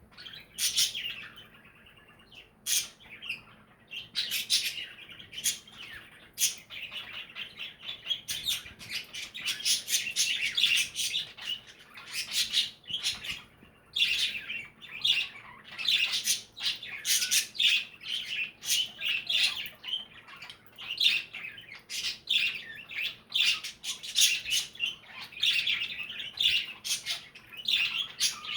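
A flock of budgies chattering and chirping constantly, with sharp clicks and squawks mixed in.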